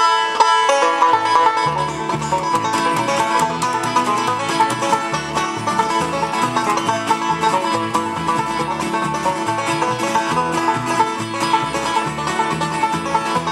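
Instrumental bluegrass played live on banjo, acoustic guitar and upright bass, the banjo's quick picking on top over a steady plucked bass beat. The tune kicks in at once, at full level.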